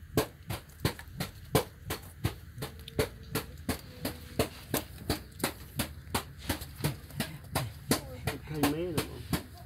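A steady series of sharp clicks, about three a second, with a brief wavering whine near the end.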